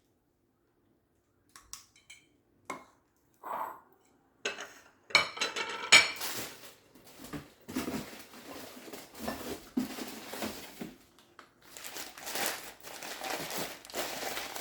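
Old glass dishes being handled and unpacked from a box: a few light clicks at first, then from about five seconds in, repeated clinks of glass on glass over steady rustling.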